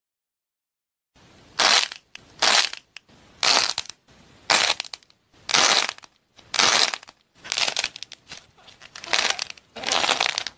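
A corn-shaped object with a thin painted shell and a crumbly white filling, crushed in the hands: short crackling crunches of the shell breaking and the filling crumbling, about one a second, starting about a second in.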